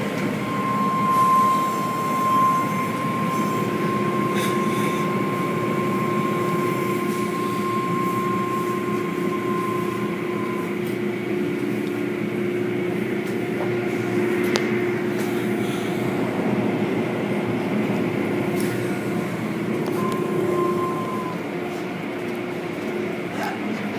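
Automatic tunnel car wash machinery running: a steady mechanical rumble from the cloth curtains, brushes and sprays working over a car. A steady high whine sounds for about the first ten seconds and briefly again near the end, with a few sharp clicks.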